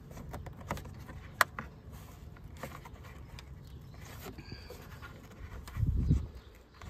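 Scattered light clicks and rattles of plastic as a hand works the grid-style vent cover loose from the side air duct behind a BMW's removed front grille, with a short low thump near the end.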